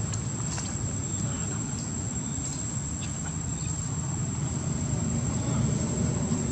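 An insect's steady high-pitched drone over a constant low rumble, with a few faint ticks.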